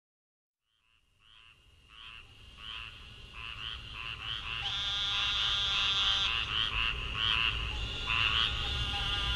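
A chorus of frogs calling: short, high, repeated calls, about one to two a second, over a low rumble, fading in about a second in and growing louder.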